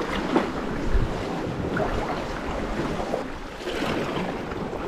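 Sea kayak paddling in calm sea water: the paddle blades dip and splash now and then over steady water sloshing, with some wind noise on the microphone.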